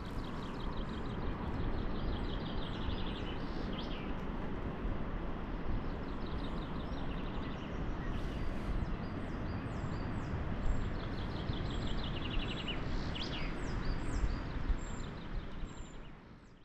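Birds calling and singing in repeated short high chirps and trills over a steady rushing outdoor background, fading out near the end.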